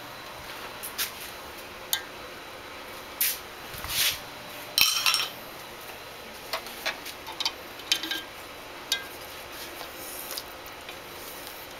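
Scattered clinks and knocks of utensils against a stainless steel cooking pot, with a dense cluster of them about five seconds in and lighter taps after.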